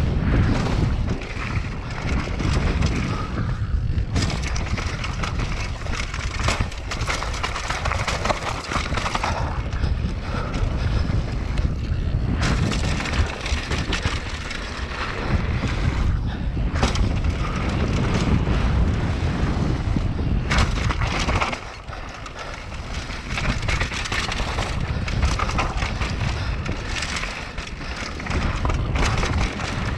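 Mountain bike ridden fast downhill: wind on the camera's microphone over tyre roar and the bike rattling, with many sharp knocks as it runs over wooden boardwalk planks and then gravel and dirt trail.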